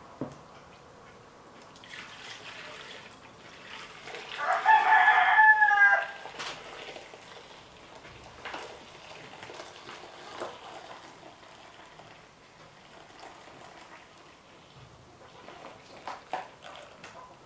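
A rooster crowing once, about four seconds in: a single call of under two seconds that drops in pitch at its end.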